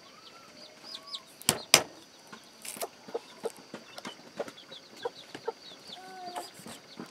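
Cleaver chopping lemongrass on a wooden chopping block: sharp knocks, loudest about one and a half seconds in, with lighter taps after. Chickens cluck in the background, with faint high bird chirps.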